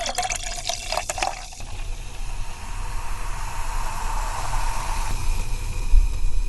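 Soda poured into a glass: a splashy pour with crackling in the first second or so, settling into a steady hiss of fizzing, popping bubbles. A low thump comes about six seconds in.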